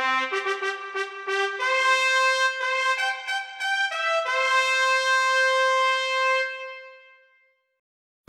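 Solo trumpet playing a short call of a few separate notes, ending on a long held note that fades out about seven seconds in.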